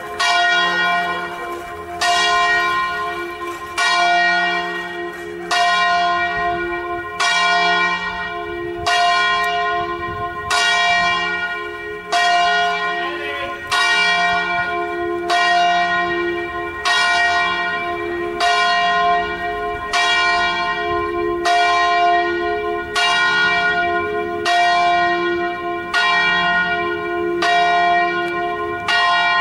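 Church bells swung and rung, with a stroke about every second and three-quarters, each stroke ringing on into the next.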